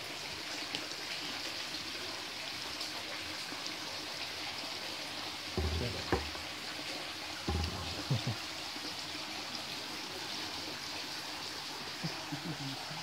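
Shallow stream water trickling and running over stones, a steady hiss. A few dull thumps come about halfway through.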